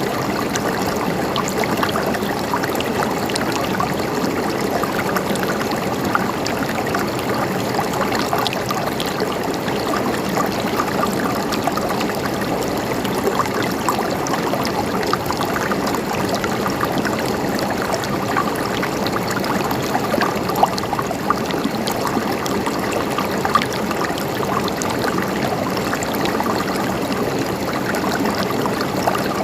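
A river flowing steadily over rocks, a constant gurgling rush of water with small splashes scattered through it.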